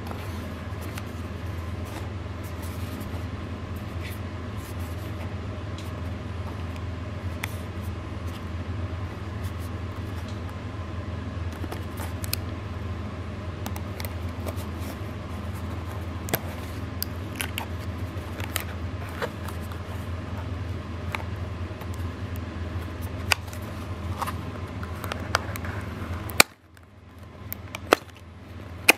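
A small cardboard retail box being handled and opened: scattered light clicks and scrapes of fingers on card and its end flap being worked open, over a steady low hum that cuts out suddenly near the end.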